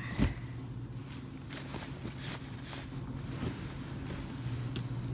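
Cloth rustling and swishing as school uniform trousers are lifted and turned over by hand, with a single thump just after the start, over a steady low hum.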